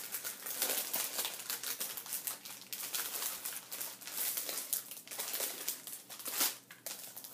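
Clear plastic sticker packaging crinkling as it is handled and pulled open, a run of quick irregular crackles with a sharper one about six and a half seconds in.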